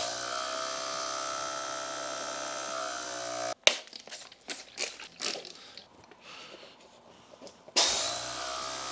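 Viair TLC Plus mini compressor running with a steady buzz while trying to seat a tubeless tire bead that isn't seating. It cuts off abruptly after about three and a half seconds. A few knocks and clicks follow as the tire is handled, and near the end the compressor starts up again.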